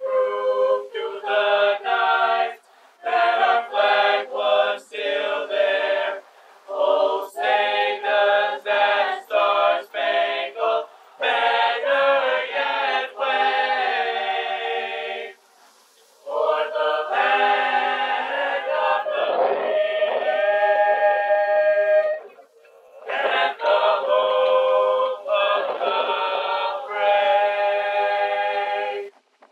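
A mixed-voice high school madrigal choir singing a cappella, in phrases with two short pauses, the last phrase cut off abruptly near the end.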